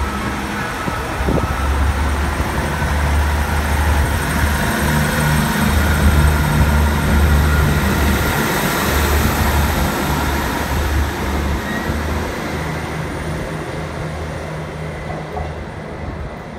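Class 158 diesel multiple unit pulling away under power, its underfloor diesel engines giving a low throb over the rumble of the wheels, with a thin high whine. It grows loudest about halfway through as the train passes, then fades steadily as it draws away.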